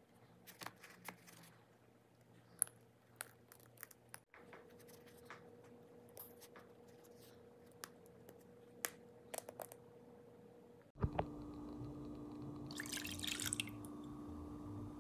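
Faint, scattered clicks and soft wet squishing from handling bread rolls and piping cream cheese filling into their cuts. About two-thirds through, the sound changes to a steady low hum, with a short hiss near the end.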